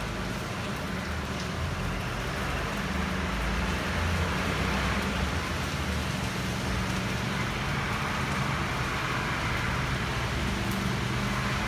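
Steady heavy rain, with cars passing on the wet road: a low engine rumble runs throughout, and tyre hiss swells and fades across the middle.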